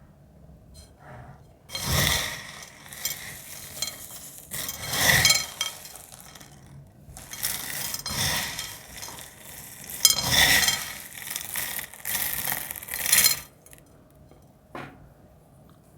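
Crisp, dried cornstarch film being crackled and crumbled, in several crunchy passages with short pauses that stop about three seconds before the end.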